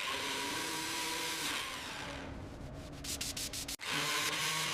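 A power tool running with a steady whir, cutting out briefly near the end and starting again.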